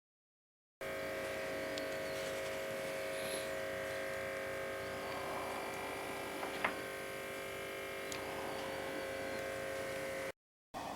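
Steady electric hum of a small motor, starting abruptly just under a second in and cutting out briefly near the end, with a single sharp click partway through.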